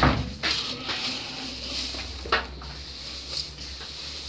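Dry grain rustling as hands stir and scoop it in a tub, with sharper rustles at the start and about two seconds in.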